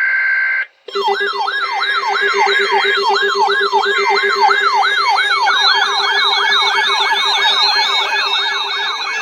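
Weather alert radio's electronic siren alarm: rapid falling sweeps repeating about three times a second, speeding up about halfway through, over a steady lower tone, signalling an incoming severe weather warning. It opens with the end of the steady two-tone digital alert header, which cuts off just under a second in.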